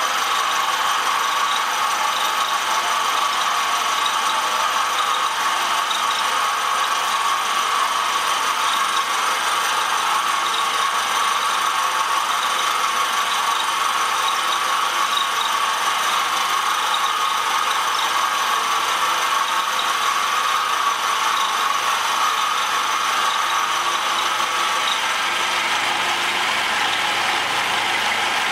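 Milling machine end mill taking a light 0.25 mm cut in the cast-iron fork of a shaper's rocker arm: a steady, even cutting noise with a grating, ratchet-like texture that does not let up.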